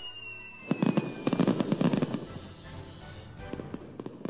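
Cartoon firework sound effect: a falling whistle that fades out in the first second or so, then a rapid crackling of sparks for about two and a half seconds, over background music.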